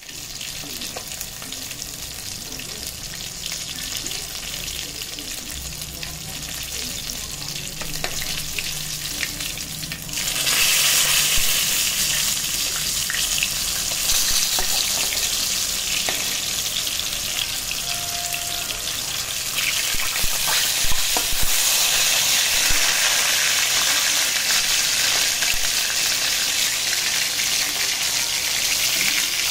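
Fish steaks sizzling as they shallow-fry in hot oil in a metal wok, a steady hiss that grows markedly louder about ten seconds in and again about twenty seconds in.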